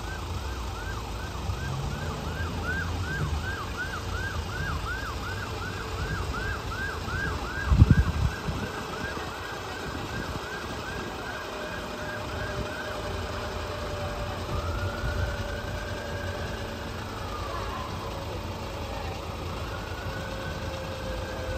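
An emergency vehicle siren yelping, its pitch sweeping up and down about twice a second, then changing to slower wails that rise and fall over a few seconds. It plays over a low engine rumble, with one loud low thump about eight seconds in.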